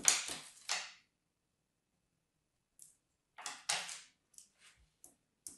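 Kinetic sand crunching and crumbling as it is handled: a few short, grainy crunches, two loud ones in the first second and another burst about three and a half seconds in, with small crackles after.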